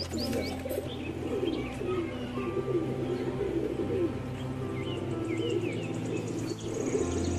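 Domestic pigeons cooing continuously, with scattered short high chirps over the top.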